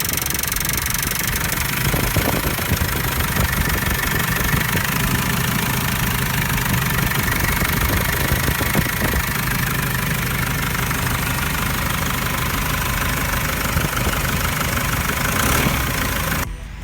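Freshly rebuilt Cummins ISF 2.8 four-cylinder turbodiesel running steadily at idle, with the usual diesel clatter. The sound cuts off abruptly just before the end.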